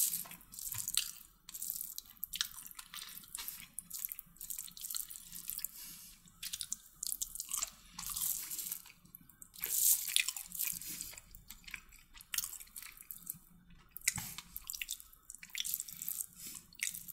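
A person eating chicken kottu roti close to the microphone: irregular wet smacks, clicks and crunches of chewing, several a second.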